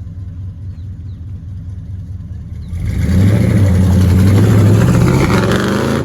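Pickup or SUV engine running low, then revving hard about three seconds in as the truck accelerates to snatch the kinetic recovery rope, with a loud rushing noise over the engine until it eases off near the end.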